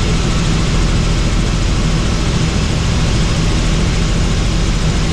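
Helicopter in flight, its engine and rotor running steadily: a loud, even drone with a steady low hum.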